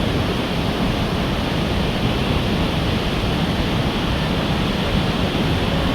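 Steady rushing roar of Victoria Falls' falling water, with wind buffeting the microphone.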